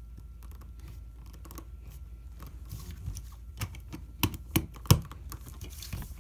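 Plastic LEGO bricks clicking as pieces are pressed and snapped together by hand, with a run of sharper, louder clicks about four to five seconds in.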